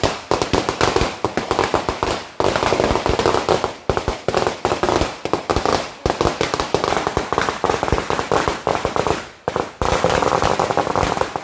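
A string of firecrackers going off: a dense, rapid run of sharp bangs, broken by a few brief pauses.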